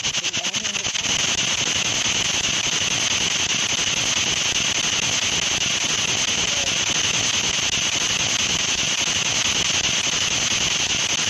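Ghost box app sweeping FM radio frequencies: a continuous hiss of radio static. For about the first second it pulses rapidly, then runs steady.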